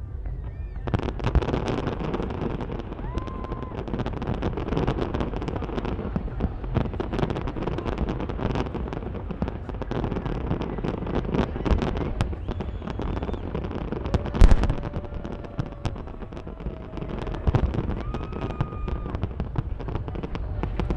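Fireworks display: a dense, continuous stream of bangs and crackles, with the single loudest bang about fourteen seconds in.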